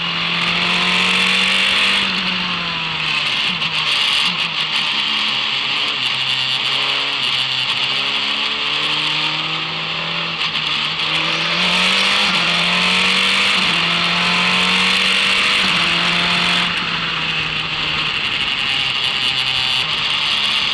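Formula racing car's engine running hard at speed, its note climbing and dropping repeatedly as the driver works through the gears, over steady wind and road noise.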